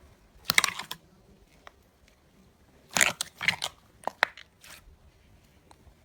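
Slime being squeezed and pressed by hand, giving several short crackling crunches: one about half a second in, a cluster around the middle, then a few sharp clicks.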